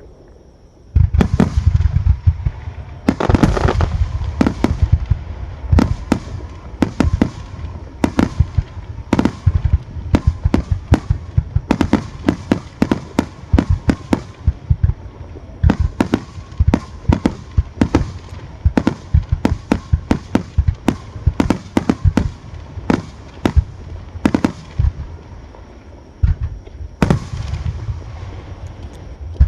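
Fireworks display: a rapid barrage of shell bursts, many sharp bangs in quick succession over a low rolling rumble, with a brief lull a few seconds before the end.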